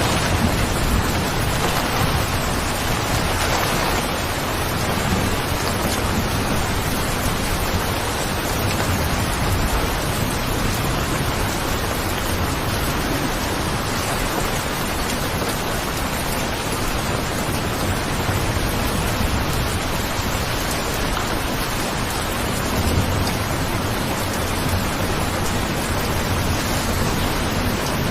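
Steady rain falling, an even dense hiss with a low rumble underneath.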